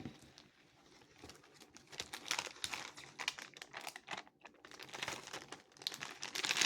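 Crinkly snack packaging and trash being crumpled up by hand, an irregular crackling that starts about two seconds in and keeps going.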